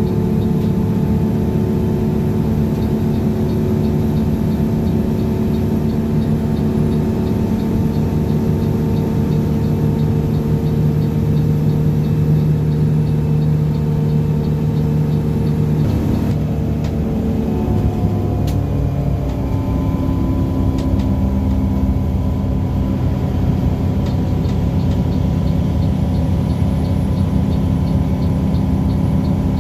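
Front-engined coach's diesel engine running while under way, heard from inside the cabin. Its engine note is steady, then falls in pitch about halfway through as the bus slows, and settles at a lower steady note, with a faint regular ticking in the background.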